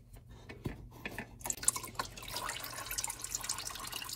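A few light clicks and scrapes as the oil filter is turned off by hand. About one and a half seconds in, used motor oil begins trickling and dripping steadily into a drain pan under the engine.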